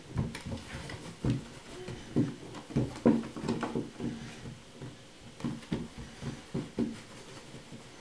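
A tabby cat scuffling with a person's hand on a wooden floor: irregular thumps and scrabbling of paws and claws on the boards, thinning out toward the end.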